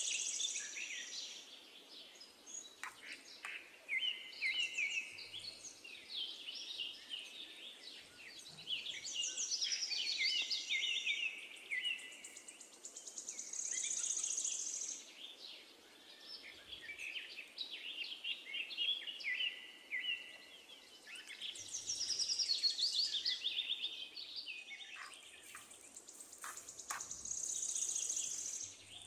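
Songbirds singing in repeated chirping and trilling phrases, coming and going every few seconds, with a few faint clicks in between.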